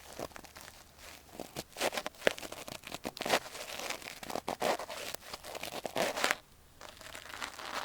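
Close-up ASMR ear cleaning: a tool scraping and scratching inside the ear, making dense crackling, crunching strokes with sharp clicks, quieter for the last second or so.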